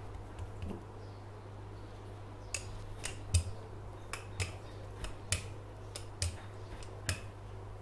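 Wooden rolling pin rolling out dough on a stone countertop, giving sharp clicks about once or twice a second as it knocks against the counter, starting a couple of seconds in.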